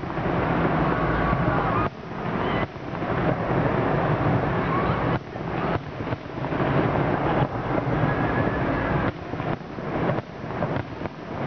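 Aerial fireworks going off in quick succession: booms and crackle running together with their echoes, with several sudden new bursts and a few faint rising whistles.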